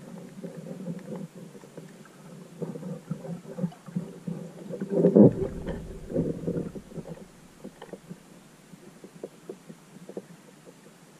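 Muffled underwater rumble picked up by a GoPro held underwater on a pole, with scattered small clicks and knocks, and one louder surge of rumbling about five seconds in.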